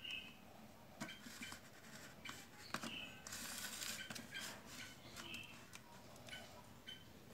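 Faint clicks and light knocks of a plastic desk fan being handled, with a short hiss about three and a half seconds in and brief high chirps now and then.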